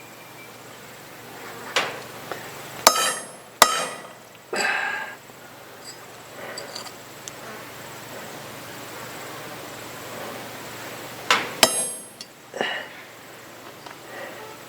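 Club hammer blows cold-cutting a metal spoon, each a sharp strike with a brief metallic ring: two close together about three seconds in and two more about eleven and a half seconds in.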